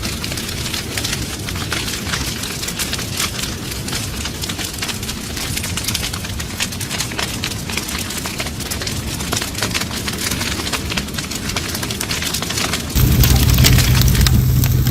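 Wood fire crackling with irregular snaps and pops over a steady rain-like hiss. Near the end the sound cuts abruptly to a louder, steady low rumble with hiss.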